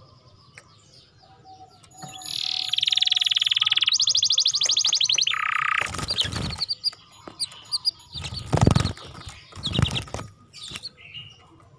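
Domestic canary singing fast trills of quickly repeated notes, each trill held at one pitch for about a second before switching to another, loudest from about two to six seconds in. It is followed by several short, loud rustling bursts between about six and ten seconds in.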